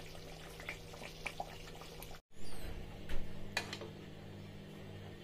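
Quiet kitchen sounds: a low steady hum with scattered light clicks, a brief dropout about two seconds in, then a slotted spoon clicking and scraping in a pot of thick fish stew as it lifts out pieces of fried fish.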